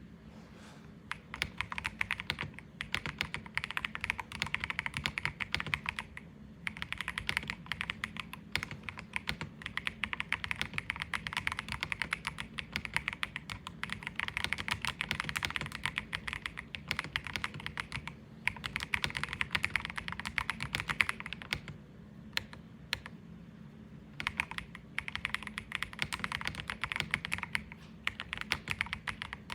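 Akko 5075B mechanical keyboard with Akko Creamy Blue Pro V5 switches and Santorini keycaps being typed on quickly, in runs of a few seconds broken by brief pauses.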